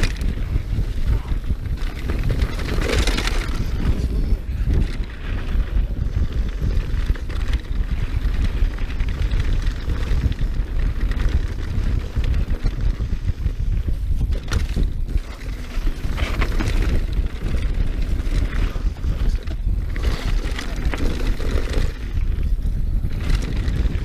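Wind buffeting the action camera's microphone at speed as a mountain bike descends a dirt trail, with a constant rough rumble of tyres and bike over the ground and irregular louder surges.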